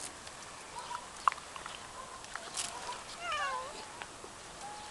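A domestic cat meows once about three seconds in, a short call that falls in pitch. A few faint ticks come before it.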